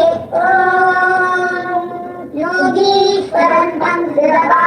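A young child singing a shloka in long, drawn-out held notes, with a short break between phrases about two seconds in.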